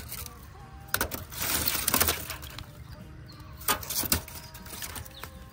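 Hard sticks of freshly made wood charcoal clinking and knocking against each other and the steel drum kiln as they are handled. The clatters come about a second in, in a quick cluster around two seconds, and twice more near four seconds.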